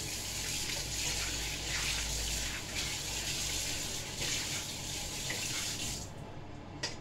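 Kitchen tap running into a sink, with water splashing as a wok is rinsed out. The water stops about six seconds in, and a single faint click follows near the end.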